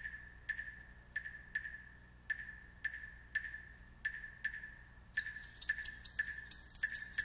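Latin percussion playing a song intro. A wooden percussion instrument knocks out a syncopated pattern of short, high, ringing strokes, and shaken maracas join in about five seconds in.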